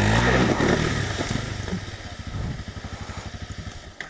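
Motorcycle engine running at low speed with an even, rapid pulsing beat. It is loudest at the start and slowly fades.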